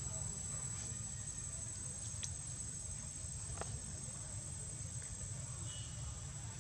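Steady, high-pitched insect chirring over a low background rumble, with two faint clicks a little over a second apart near the middle.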